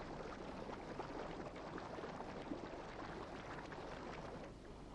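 Faint ambience of calm sea water lapping: an even, hissy wash with many small crackles.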